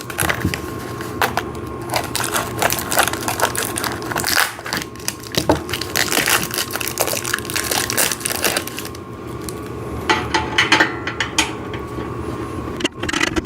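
Irregular clicking, scraping and rattling of metal hardware as a long bolt is worked through a hole in a steel exercise-machine frame.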